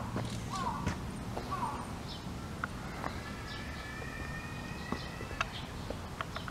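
Birds calling outdoors, a few swooping chirps in the first two seconds, over light footsteps on a paved path. A faint steady high tone sounds for about two seconds in the middle.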